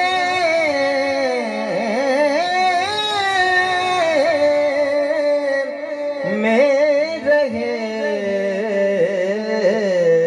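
A naat, an Urdu devotional song praising the Prophet, sung unaccompanied in long, wavering held notes with melodic ornaments.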